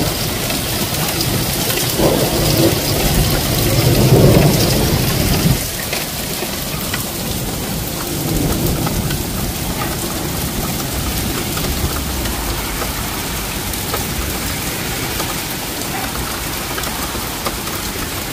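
Heavy rain and hail pouring down in a thunderstorm, a dense steady hiss with scattered ticks of hailstones. A louder low rumble swells about two seconds in and cuts off suddenly a few seconds later.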